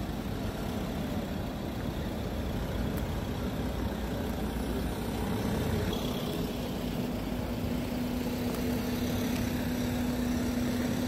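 Motorhome engines running as the vehicles drive slowly past at walking pace, one after another. A steady low engine hum becomes stronger from about six seconds in as a motorhome passes close by.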